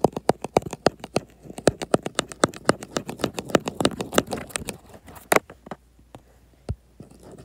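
Rapid tapping on a tablet touchscreen, about eight taps a second, with one louder tap about five seconds in and then only a single tap: repeated presses of the drawing app's undo button, reverting a warped drawing.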